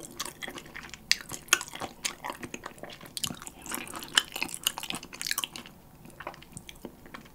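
Close-miked chewing of a mouthful of spicy chicken feet: dense small wet clicks and snaps of the mouth and teeth, thinning out after about five and a half seconds.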